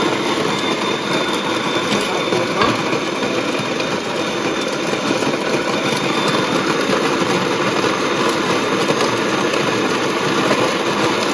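Electric coffee grinder running steadily as it grinds whole coffee beans on a timed 17-second run.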